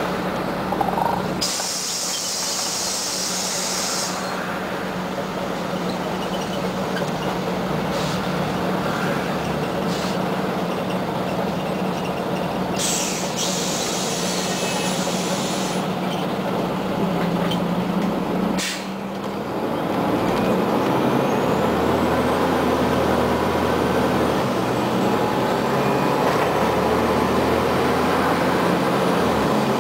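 Scania CN94UA OmniCity articulated city bus under way, heard from inside: steady engine hum and road noise, with two hisses of compressed air lasting a couple of seconds each. A clunk about two-thirds through, after which the engine's steady tone gives way to a lower hum.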